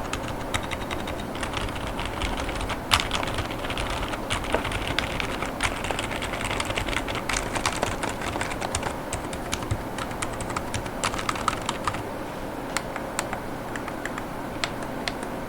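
Typing on a GravaStar Mercury K1 mechanical keyboard in a K1 Lite case, with GamaKay Pegasus silent tactile 45 gf switches and polycarbonate Cherry-profile keycaps. A quick, continuous run of keystrokes, with one louder stroke about three seconds in, thins to scattered single presses after about twelve seconds.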